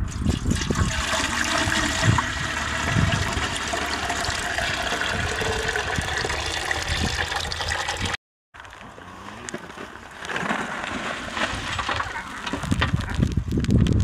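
Water rushing in a steady gush. It breaks off abruptly about eight seconds in and resumes moments later.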